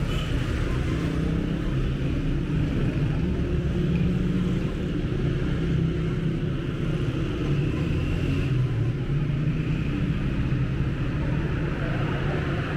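Steady city street ambience: the low, continuous noise of road traffic.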